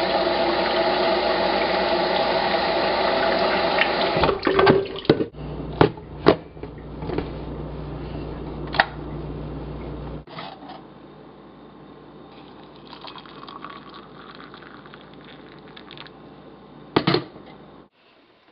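Tap water running into a stainless steel electric kettle for about four seconds, then a few sharp clunks and knocks as the tap is shut and the kettle handled, followed by a low steady hum.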